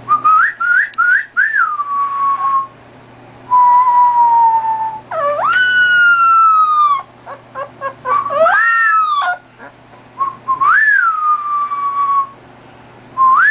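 A puppy making high, whistle-like calls: a few quick rising chirps at the start, then several long tones that slide up and glide slowly down, separated by short pauses.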